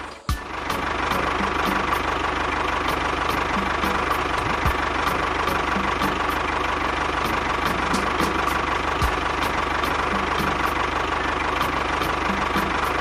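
A small motor running steadily, with a faint, regular ticking about three times a second.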